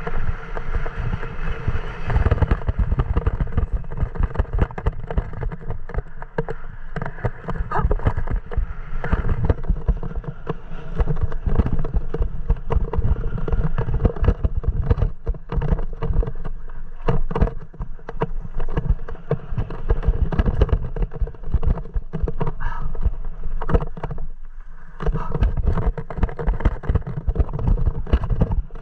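Mountain bike descending a dry dirt trail: continuous rumble of tyres over the dirt, with many knocks and rattles from the bike over bumps and wind buffeting the microphone.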